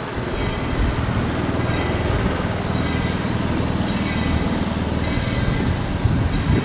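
Tweetsie Railroad No. 12, a narrow-gauge steam locomotive, running slowly around the engine sheds. It gives a steady low rumble, with faint high ringing tones about once a second.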